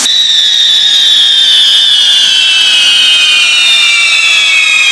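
Whistling firework wheels spinning on a fireworks castle: a loud, shrill, many-toned whistle that starts suddenly and slowly falls in pitch, over the hiss of spraying sparks.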